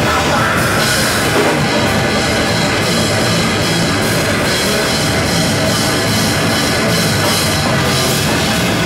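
A live heavy metal band playing loud and without a break: a drum kit and electric bass guitar, with Marshall-amplified distorted guitar sound.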